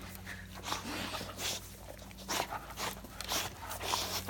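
Great Dane puppy panting and snuffling at close range in short, irregular breaths as it mouths at clothing.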